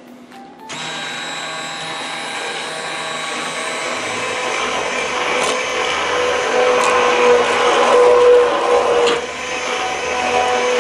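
MegaWise 800-watt immersion hand blender switched on about a second in, its motor whining steadily as the blade purees a pot of cooked carrot and potato soup. It grows gradually louder, with a brief dip near the end.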